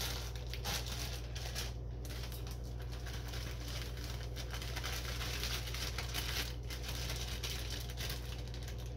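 Clear plastic cake-mix bag crinkling as it is pulled open and turned upside down to shake the dry mix out into a stainless steel bowl. A steady low hum lies underneath.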